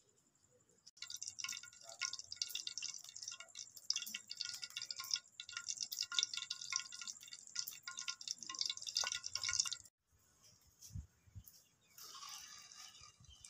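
Oil heating in a metal karahi over a wood fire, crackling and spitting densely; it cuts off abruptly about ten seconds in and a couple of low thumps follow. Near the end a softer sizzle starts as kofta balls are dropped into the hot oil.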